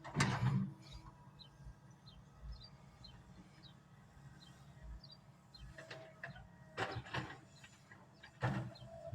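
Faint bird chirps repeating every second or so, with a louder short noise at the start and a few more near the end.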